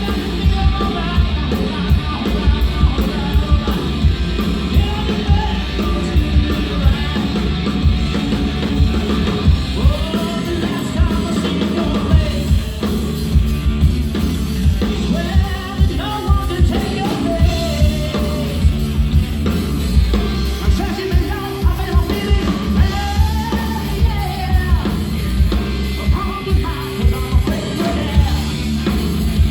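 Live rock band playing, with lead vocals over bass, guitar and a steady drum-kit beat.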